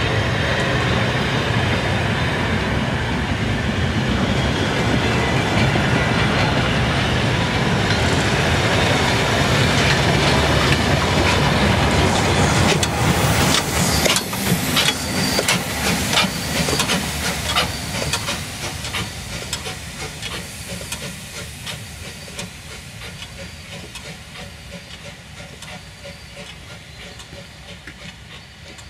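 Passenger coaches of a steam train rolling past close by, wheels clattering on the rails. About halfway through, the class 78 tank locomotive 78 468 passes with hissing steam and a quick run of sharp clicks. The train then fades steadily as it moves away.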